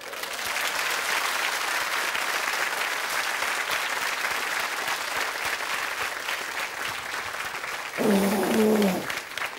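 Audience applauding steadily, starting at once as a recited poem ends; a voice cuts in briefly near the end.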